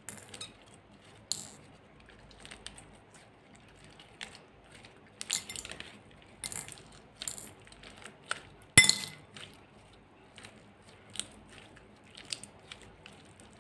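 Glossy slime being squeezed and stretched by hand: irregular sticky clicks and pops, with one sharper knock about nine seconds in, the loudest sound, followed by a brief ring.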